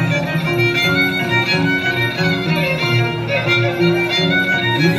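Chimaycha music played live, a violin carrying the melody over a steady, repeating rhythmic accompaniment.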